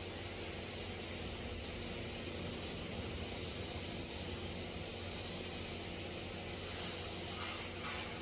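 TIG welding arc on stainless steel: a steady hiss over a low hum. The high part of the hiss drops away near the end.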